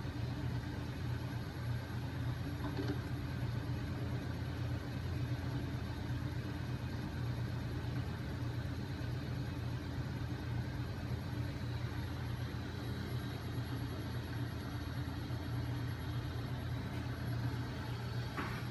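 Homemade magnet-engine rig running steadily: a 12 V DC electric motor turning the crankshaft, rocking arms and 5 kg flywheel, with a steady low mechanical hum.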